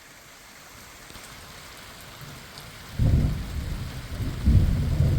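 Thunderstorm sound: a faint steady hiss of rain, then low rolling thunder rumbles swelling in surges from about three seconds in.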